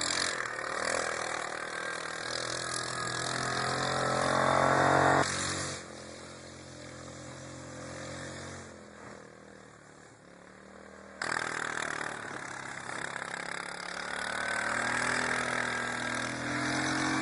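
Yamaha Grizzly 700 ATV on Tatou 4S snow tracks being driven across snow, its single-cylinder engine revving higher over the first five seconds. It then drops to a faint distant hum, comes back suddenly louder about eleven seconds in, and rises in pitch again near the end.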